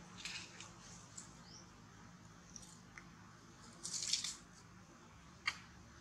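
Dry leaf litter crackling and rustling in short bursts as monkeys shift on it, the loudest burst about four seconds in, followed by a single sharp click.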